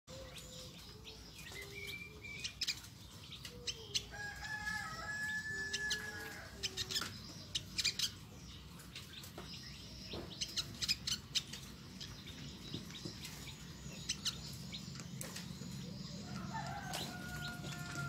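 Olive-backed sunbird giving its typical sharp, high "nyecret" chirps in quick clusters every few seconds.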